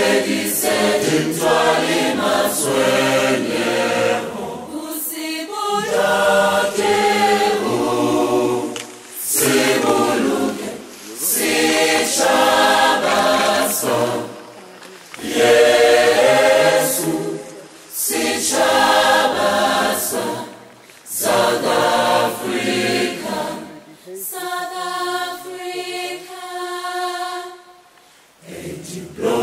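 A choir singing a cappella in phrases a few seconds long with short breaks between them, ending on a long held chord.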